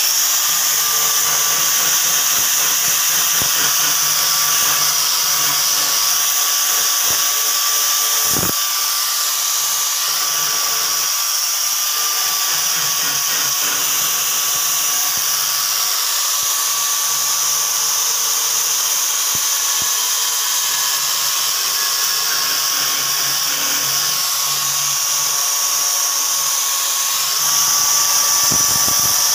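Angle grinder fitted with an abrasive disc running steadily against the flat of a rusty steel cleaver blade, sanding off the rust. It is a constant motor whine with a hissing scrape, a little louder near the end.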